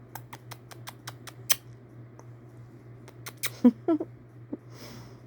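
A kitten playing at a bare foot, biting and clawing: a quick run of light clicks and ticks, a few more after a pause, then two short squeaks.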